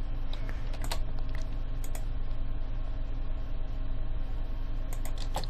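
A few scattered computer keyboard and mouse clicks over a steady electrical hum.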